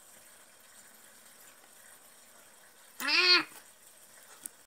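Faint room noise, then about three seconds in a single short call or cry that rises then falls in pitch, followed by a faint click near the end.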